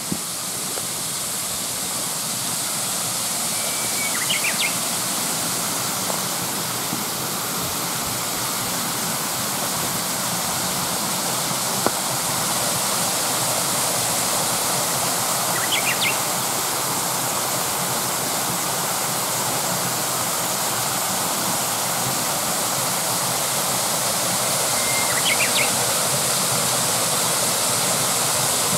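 Mountain stream rushing steadily, a constant even sound of flowing water. Three brief high chirps sound over it, about ten seconds apart.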